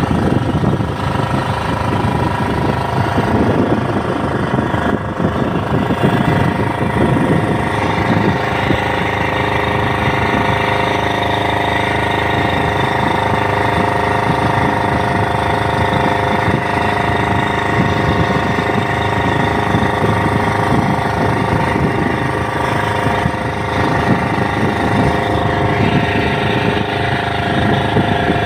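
A small engine aboard an outrigger fishing boat, running steadily at one constant speed with a fast, even pulse.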